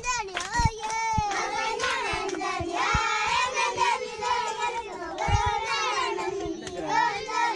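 A class of children singing together in unison, voices sustained and overlapping, with a few soft thuds among them.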